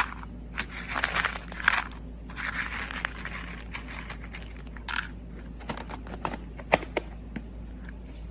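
Dry pet kibble scraping and rattling as a clear plastic cup scoops through a pile of it on a hard counter, then a run of sharp clicks from single pellets knocking against the plastic.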